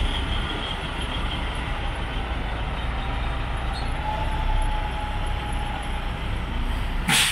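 A semi-truck tractor's diesel engine runs steadily as the truck rolls slowly past. Near the end comes a short, sharp hiss of air from the air brakes as it stops.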